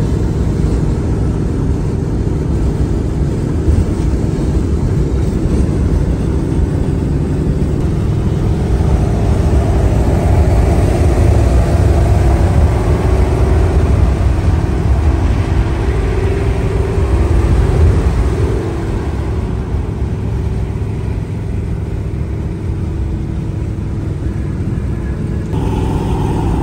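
Cabin noise of a 1969 Dodge Charger cruising at highway speed: a steady loud rumble of engine, exhaust, tyres and wind. It grows louder about a third of the way in and eases off a little after the middle.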